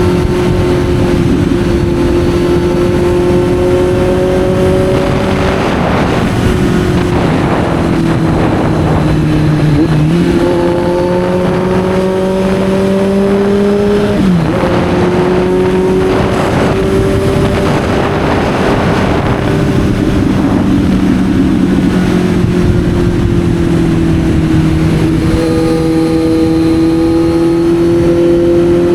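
Kawasaki Z900's inline-four engine under way at steady throttle, its pitch slowly climbing, with abrupt pitch changes about ten and fourteen seconds in. Gusts of wind noise swell over it now and then.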